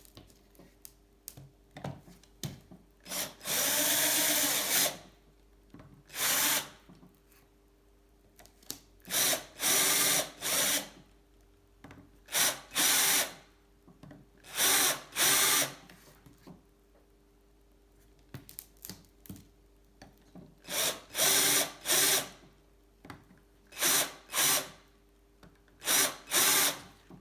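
Electric drill run in repeated short bursts, drilling cosmetic lightening holes in a bicycle seat post. The first burst lasts about two seconds; the rest are shorter and often come in pairs, with quiet gaps between.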